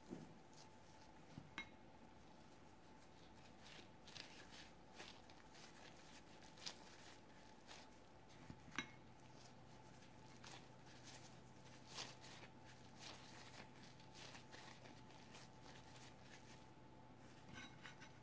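Near silence with faint handling sounds: plastic-gloved hands squeezing and shaping sticky cooked rice into a rice ball, giving soft rustles and scattered light clicks over a faint steady hum.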